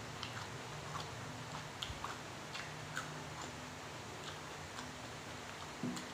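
Close mouth sounds of a man chewing a mouthful of raw beef koi with fresh leaves: soft, irregular wet clicks and smacks, a few a second, over a low steady hum.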